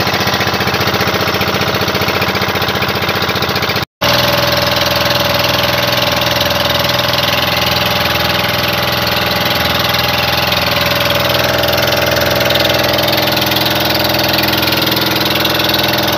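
Small outrigger fishing boat's engine running steadily while the boat is under way, with a brief break about four seconds in.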